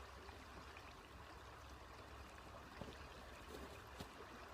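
Faint, steady rush of creek water, with a couple of small ticks.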